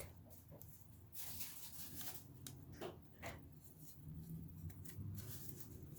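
Faint handling of a plastic buttonhole template being fitted into a sewing machine's buttonholer attachment: light rubbing with a few scattered small clicks as it is pushed into place.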